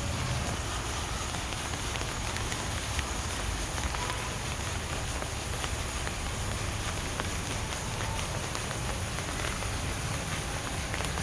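Steady rain falling, an even hiss dotted with the sharp ticks of single drops hitting a surface, over a constant low rumble.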